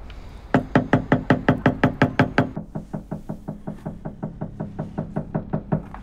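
A fist pounding rapidly on a motel room door, about six blows a second. Loud at first, then a little over halfway through the blows go on duller and quieter, muffled, until they stop just before the end.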